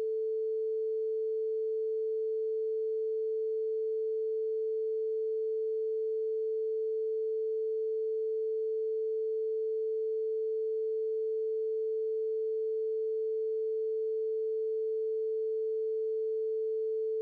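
Sine wave from the Oscalate synthesizer app sounding as one steady, unchanging pure tone, playing continuously because its envelope is switched off.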